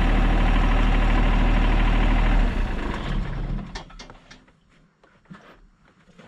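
An engine running steadily, then dying away about three to four seconds in, followed by faint scattered ticks.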